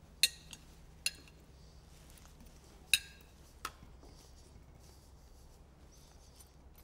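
Metal knife and fork clinking against a ceramic plate as food is cut, four sharp clinks in the first four seconds, the third the loudest.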